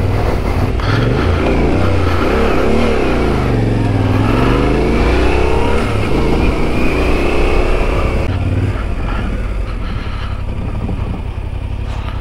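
Yamaha Ténéré 700's 689 cc parallel-twin engine being ridden, its pitch rising and falling repeatedly as the throttle is opened and closed, then settling lower and steadier about eight seconds in.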